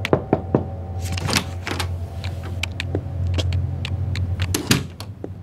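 Sheets of paper rustling and clicking as they are leafed through at a desk, over a steady low hum, with a louder clatter near the end.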